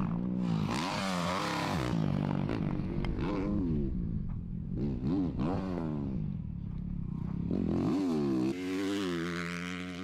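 Four-stroke motocross bike engines revving up and falling back again and again as the throttle is worked through the gears, the pitch rising and dropping several times. About eight and a half seconds in, the sound cuts abruptly to another bike pulling at steadier, higher revs.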